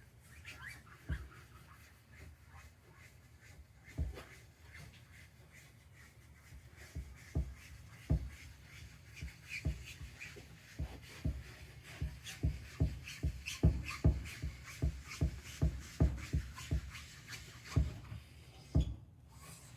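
An applicator pad rubbed in small circular motions over a plastic headlight lens, spreading restoration coating. It gives a faint rubbing with dull thumps that come faster through the second half, about two a second.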